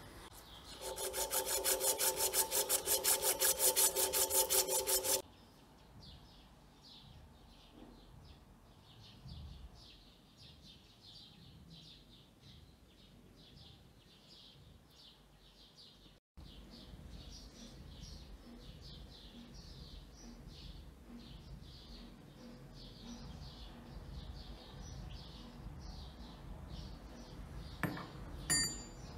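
The brass pestle, clamped in a vise, is rubbed or polished rapidly for about four seconds: a fast rhythmic scraping with a steady tone under it. Faint bird chirps follow, and near the end a few light metallic clinks sound as the brass pestle is set into the bronze mortar.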